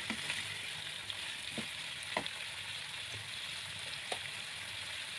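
Chicken wings sizzling as they stir-fry in spice paste in a non-stick wok, a steady hiss with a few short scrapes of a spatula against the pan.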